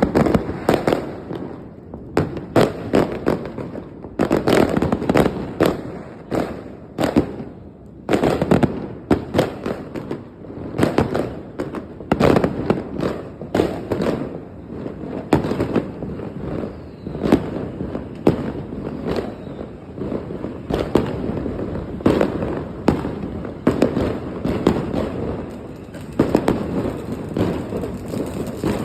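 Firecrackers going off: a dense run of sharp bangs and crackles in clusters, with short lulls between.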